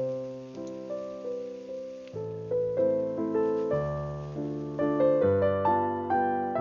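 Background piano music: single notes played one after another over low held bass notes.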